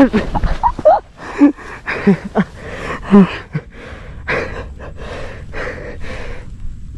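A mountain biker's heavy, gasping breaths and short groans right after crashing over the handlebars, the breaths coming about twice a second and easing off near the end.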